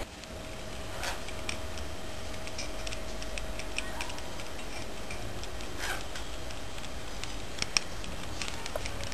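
Ducorps's cockatoo chewing and working a plastic ring toy with a ball inside: irregular light clicks and ticks of beak on plastic, with two sharper clicks near the end.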